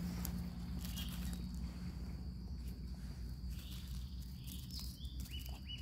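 Woodland ambience with a steady high insect drone, soft rustling and crackling of dry leaf litter as mushrooms are picked by hand, and a few short high chirps near the end.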